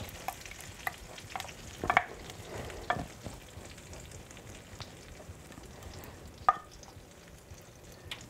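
Melted butter sizzling faintly in a hot frying pan as honey is poured in, with a few light clicks and taps scattered through it.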